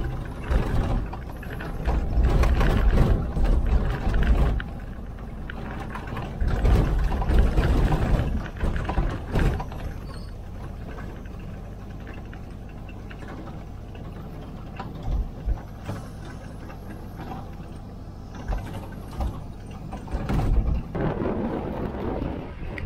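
A 4x4's engine running steadily as it drives along a rough dirt track, with loud gusts of wind noise buffeting the microphone at the start, again after about seven seconds, and in short bursts near the end.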